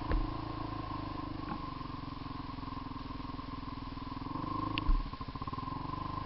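Quad bike (ATV) engine idling steadily, with two short thumps, one at the start and one about five seconds in.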